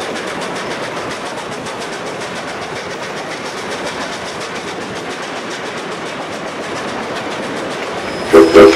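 Lionel O-scale model train running on three-rail track, a steady rolling clatter with fine rapid ticking. Near the end the Nickel Plate Road 8040 locomotive passes close and a short, loud whistle of a few low pitches sounding together goes off.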